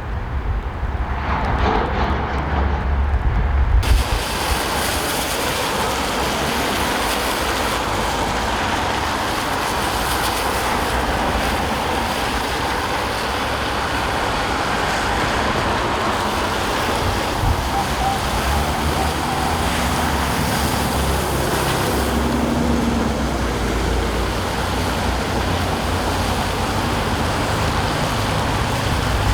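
Steady outdoor noise of traffic and wind, with a heavy low rumble and hiss. A brighter hiss comes in abruptly about four seconds in.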